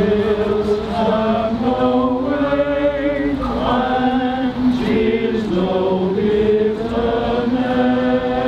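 A crowd singing together in slow, held notes, the tune stepping up and down from note to note.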